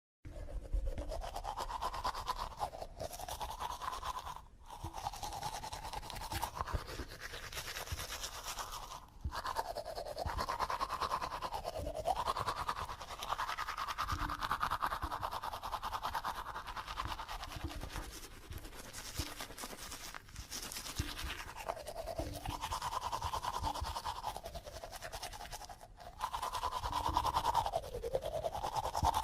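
Electric toothbrush brushing teeth: a buzzing motor hum whose pitch sags and recovers again and again under the scrubbing of the bristles, broken by short pauses about four, nine and twenty-six seconds in.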